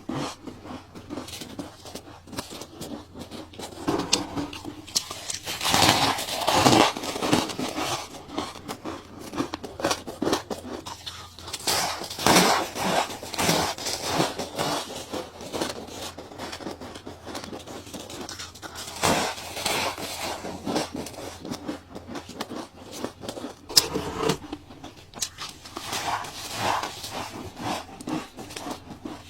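Ice being bitten and crunched between the teeth: irregular crunches and cracks in clusters, with one sharp crack a little past the middle.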